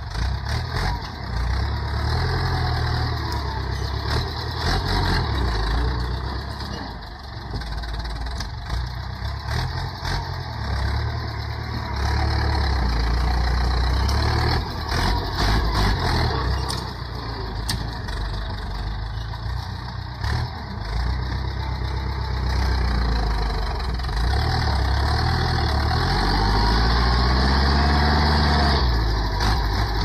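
Ford farm tractor's diesel engine working under load as its front dozer blade pushes soil, the engine note rising and falling with the load and climbing in pitch near the end.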